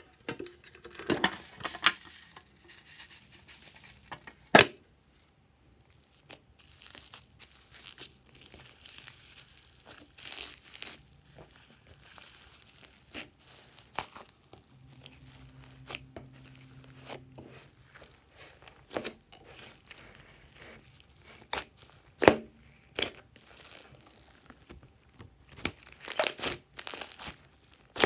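Hands kneading, stretching and folding glossy and fluffy slime mixed with foam beads and glitter: sticky crackling and tearing sounds with scattered sharp pops and clicks.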